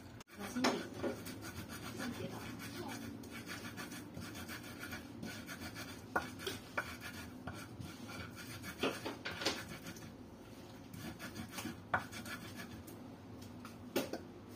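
Intermittent scraping and rubbing of a utensil against a wooden mortar bowl, with a handful of sharp knocks and taps spread through.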